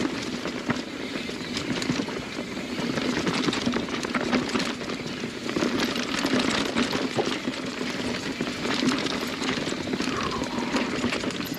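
Mountain bike riding along a rough dirt singletrack: a steady rush of tyre and trail noise with frequent knocks and rattles from the bike over roots and rocks, over a steady low hum.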